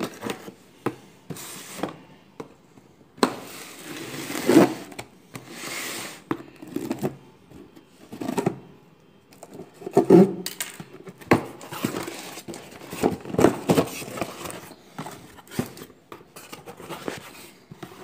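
A knife blade slitting the packing tape and cardboard of a box, then the flaps being pulled open and the cardboard handled: irregular scrapes, tearing and rustling with sharp knocks scattered throughout.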